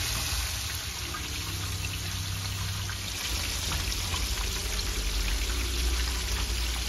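Whole giant gourami deep-frying in a large pan of hot oil: a steady sizzle and crackle with small scattered pops, over a low steady hum.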